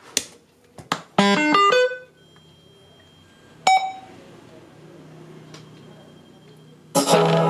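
Homemade Bluetooth speaker box switched on with a few rocker-switch clicks, then sounding its power-on chime, a quick run of stepped electronic tones. A single electronic beep follows about two seconds later over a faint hum, and music starts near the end.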